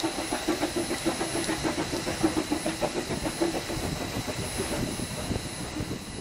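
Steam locomotive chuffing steadily with a hiss of steam and wheels clattering on the rails, growing fainter near the end as it passes.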